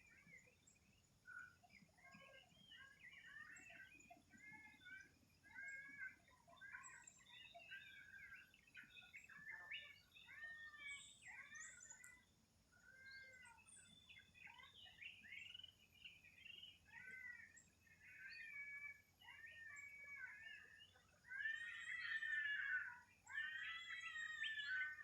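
Birds chirping continuously in a chorus of short, arched notes, growing louder near the end.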